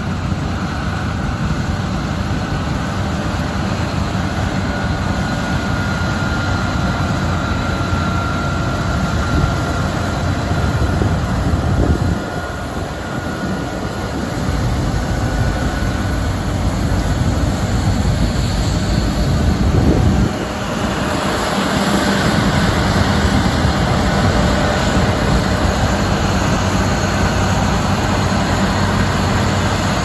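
A John Deere X9 1100 combine harvester running flat out while threshing wheat, together with a tractor pulling a grain trailer alongside: a loud, steady din of diesel engines and threshing machinery. A faint high whine sits over it for the first half.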